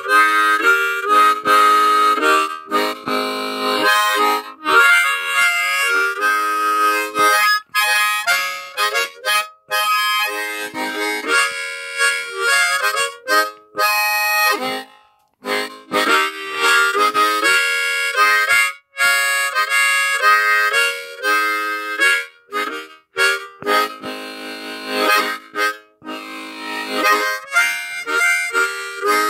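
Hohner Special 20 diatonic harmonica in A flat played solo: improvised country blues riffs, phrases of sustained and bending notes broken by short breathing pauses, the longest about halfway through.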